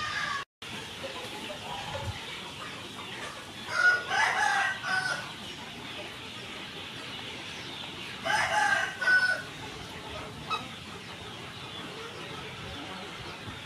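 A rooster crowing twice, about four seconds and eight seconds in, each crow about a second long, over a steady background hiss.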